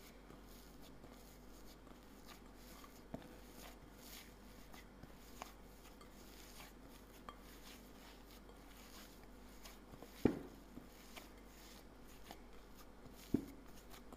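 Hands kneading soft butter dough in a glass mixing bowl: faint rubbing and squishing with small ticks, and two louder sharp knocks, about ten seconds in and again near the end.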